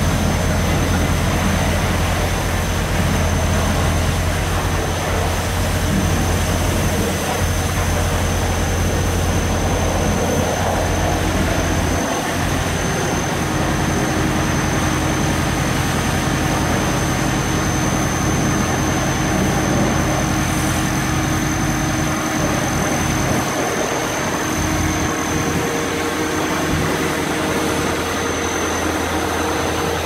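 ABG Titan 111 asphalt paver's diesel engine running steadily with a low hum, with a thin high-pitched whine over it.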